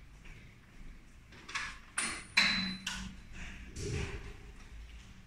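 Quiet room tone broken by a few short soft knocks and clicks between about one and a half and four seconds in.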